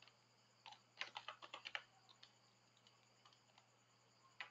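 Faint typing on a computer keyboard: a quick run of keystrokes about one to two seconds in, then a single tap near the end.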